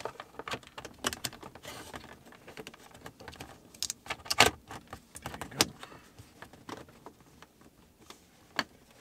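Wiring-harness connectors and plastic console trim being handled in a car's dash opening: scattered clicks, light rattles and rustling. The loudest knock comes about four and a half seconds in.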